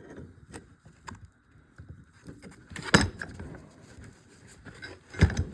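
Metal-on-metal clinks and taps as a puller and hand tools are handled on a hydraulic pump, with a sharp clank about three seconds in and a heavier knock near the end.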